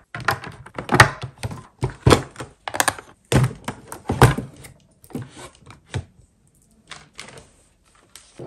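Plastic toiletry bottles and boxes clacking against clear plastic organiser trays as they are set into a drawer: a quick, irregular run of knocks that thins to a few separate taps after about five seconds.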